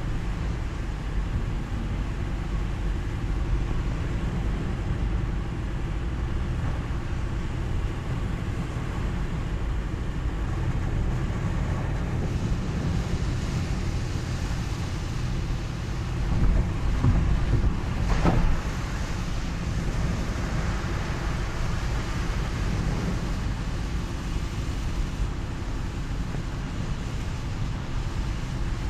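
Car driving in the rain: a steady low road rumble with a hiss of wet tyres and rain over it. A little past the middle it grows louder for about two seconds, ending in one short sharp sound.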